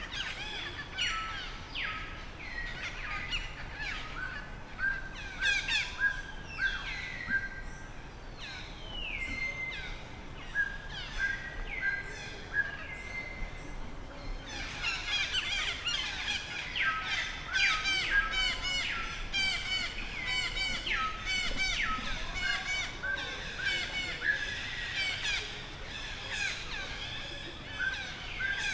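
Many birds chirping and calling, short high notes and quick falling whistles overlapping. The chorus gets much busier and louder about halfway through.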